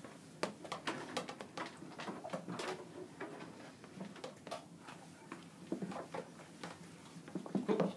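Irregular light clicks and taps of metal feeding tongs knocking against a plastic tub and against each other.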